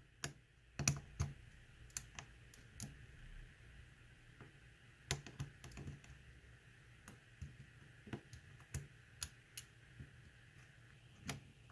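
Faint, irregular small clicks and ticks of a hook pick and tension wrench working the pins of a pin-tumbler lock, some sharper than others.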